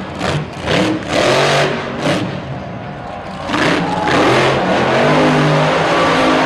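Monster truck's supercharged V8 revving in a run of short throttle bursts, then held at high revs from about halfway through as the truck goes up on its wheels in a trick.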